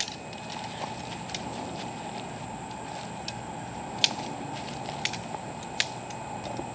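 Sections of shock-corded aluminium tent poles snapping together with a few sharp, separate clicks, the clearest about four, five and six seconds in. Under them is a steady background hiss with a high even whine.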